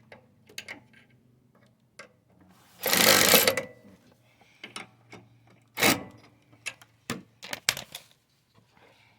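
Scattered clicks and knocks of hand tools and metal parts being handled on a lawn mower carburetor. A loud rushing burst of noise comes about three seconds in, and a shorter one near six seconds.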